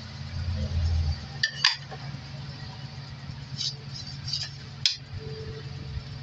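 A metal knife clinking against the rim of an aluminium flan mold (llanera), then the mold knocking on a ceramic plate as it is turned over and lifted off: several short, sharp clinks over a steady low hum.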